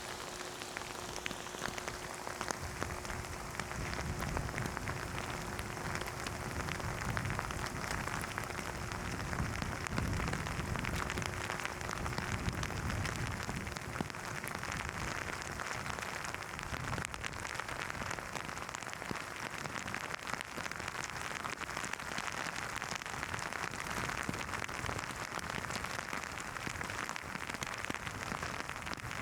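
Steady rain falling in a thunderstorm, with a dense patter of individual drops. A low rumble swells and fades in the first half.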